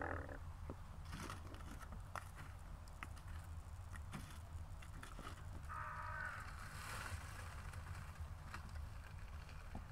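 Aluminium foil over a campfire crinkling and rustling as it is handled, with scattered faint clicks. A crow caws once about six seconds in.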